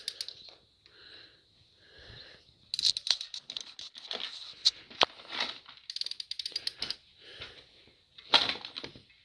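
Hand ratchet wrench clicking in several short runs of rapid clicks as a bolt is tightened, with quiet pauses between the runs; the longest run comes in the middle and a short one near the end.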